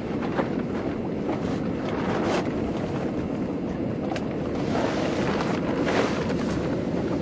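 Steady noise of a boat on open water: wind buffeting the microphone over a running boat motor and sea noise, with a few brief splashes or slaps.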